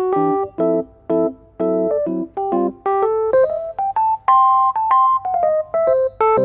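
Background music played on a keyboard with a piano-like sound: short, evenly spaced chords under a simple melody, with a run of notes climbing in pitch about halfway through.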